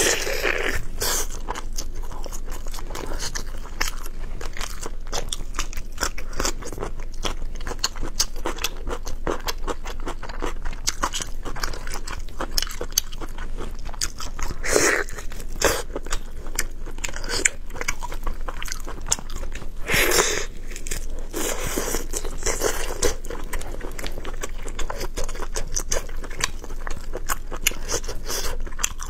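A person chewing and biting braised pork knuckle: a dense run of mouth clicks, with a few louder bites about 15 and 20 seconds in.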